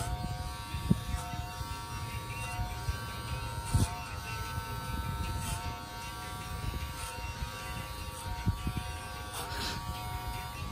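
Corded electric hair clippers buzzing steadily while cutting hair, the pitch dipping briefly a few times, with a few soft low bumps.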